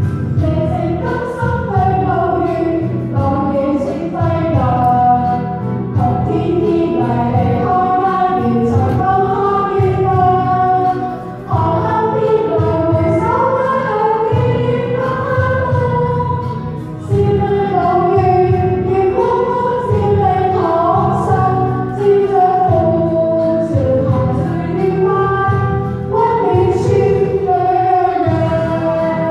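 A woman singing a Cantonese pop song into a microphone over instrumental accompaniment, amplified through the hall's PA.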